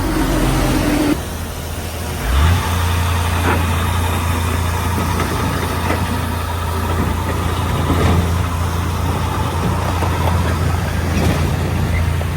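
Heavy diesel engine running. It eases off about a second in, then revs up just after two seconds and holds a steady, higher working note.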